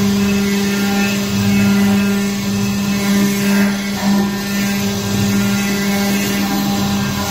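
Double-head CNC stone carving machine running, its two water-cooled spindles cutting marble: a steady, unchanging machine hum over a hiss of cutting noise.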